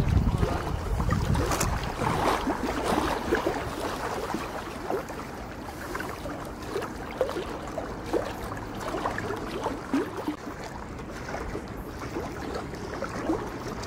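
Lakeside water sounds: small splashes and lapping, with wind rumbling on the microphone, strongest in the first couple of seconds.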